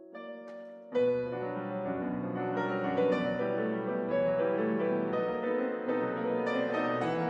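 Slow piano music with held, overlapping notes. It is quiet at first, and a louder chord comes in about a second in.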